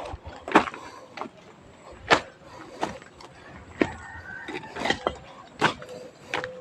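Footsteps of a person walking, one short step sound about every second.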